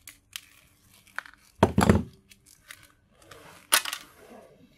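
Small metal and plastic parts and tools being handled while a small microwave motor is taken apart on a workbench: scattered clicks and rustles, with a heavy knock about two seconds in and a sharper knock near four seconds.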